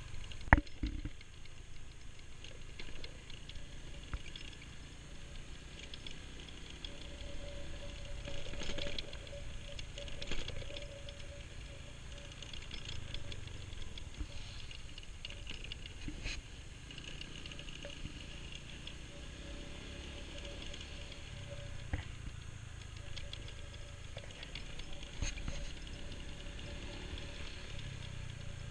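Small motorbike riding along a dirt road: a low engine hum with a steady higher drone and rumble of wind and road, broken by sharp knocks and rattles now and then, the loudest about half a second in.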